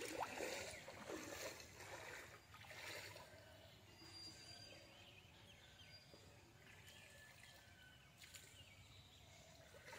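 Near silence: faint outdoor ambience by a pond.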